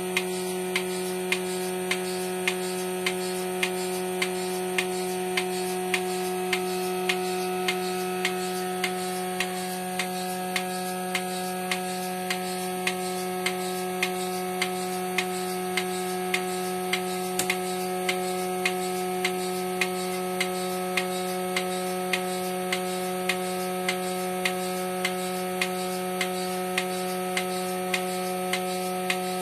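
Portable bucket milking machine running while milking a cow: the vacuum pump motor runs with a steady hum, and the pulsator on the stainless steel bucket lid clicks at an even beat of about one click a second.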